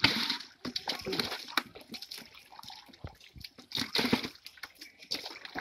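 Water splashing and sloshing in irregular bursts. Netted live fish are thrashing in shallow pond water while water is scooped with a metal pot and poured into a bucket.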